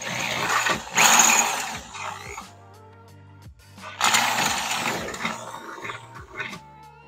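Ridgid corded electric drill running in two bursts, the first about two and a half seconds long and the second starting about four seconds in, as it bores out rivet holes in a car door's sheet-metal inner panel to take M5 riv-nut inserts. Background music plays underneath.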